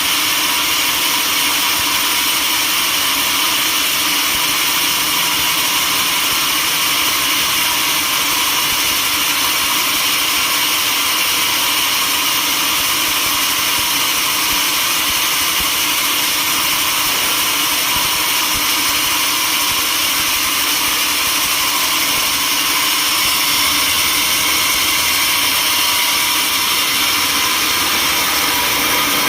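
Sawmill machinery running steadily: a constant, high-pitched mechanical noise with several steady whining tones and no break.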